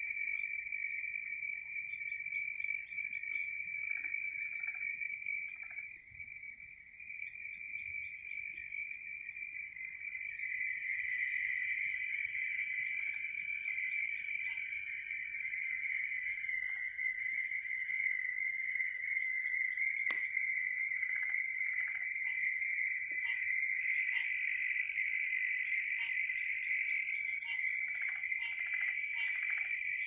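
Night chorus of insects and frogs: a steady high-pitched trill with fainter, higher buzzing above it, and scattered short calls lower down that come more often in the last few seconds. A single sharp click about twenty seconds in.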